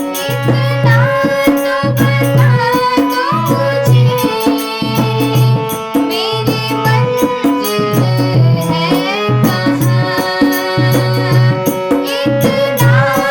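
Hindi devotional bhajan music: a gliding melody over a steady, repeating tabla rhythm.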